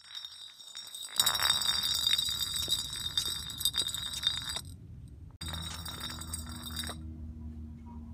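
Empty glass beer bottle rolling and rattling over a concrete path, ringing with a high steady tone. It breaks off for under a second about halfway through, then rolls on for another second and a half.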